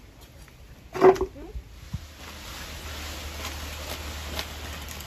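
A short, loud call about a second in, then a steady rustling hiss with a low rumble and a few faint crackles as long cut palm fronds are lifted and dragged across the ground.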